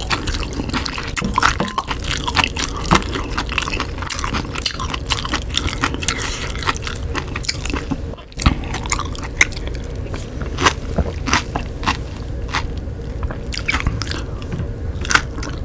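Close-miked eating sounds of spicy ramen: wet chewing and mouth clicks, with a wooden spoon scraping and stirring in the bowl. There is a brief break a little past halfway.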